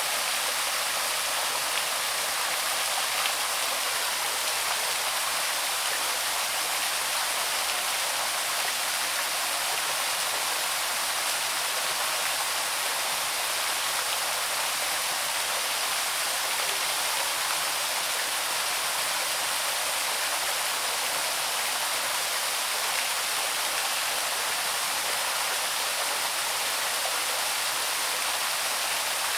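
Small cascade of the Loch in Central Park's North Woods, water pouring over rocks in a steady, even rush with no change.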